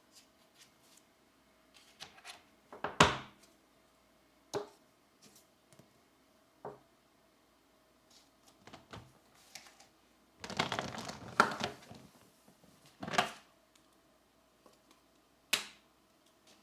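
Coloring supplies being handled: a string of separate taps and clicks, the loudest about three seconds in, with a longer rustle of paper about ten seconds in.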